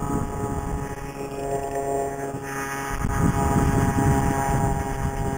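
Scooter's 49cc CAG two-stroke engine running steadily at about 4,200 RPM under way, with a rushing wind noise that swells about three seconds in.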